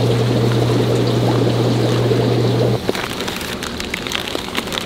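Aquarium water bubbling with a steady low hum, which cuts off abruptly about three seconds in. Then the crinkling and light clicks of a plastic fish bag being handled.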